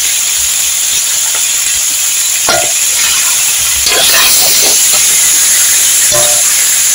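Vegetables sizzling steadily as they fry in a hot pan. They are stirred, with a few short knocks of the utensil against the pan, and the sizzle grows a little louder about four seconds in.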